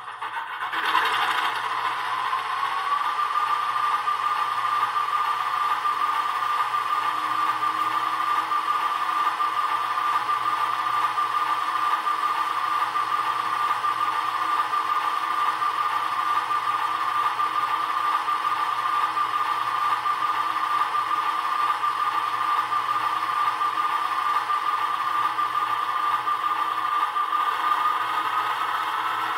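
Soundtraxx Tsunami2 decoder's Alco diesel engine sound played through a small ESU Sugar Cube speaker in an HO-scale model locomotive: the engine sound comes on about a second in and runs steadily with a rattle and a high whine, which rises slightly near the end.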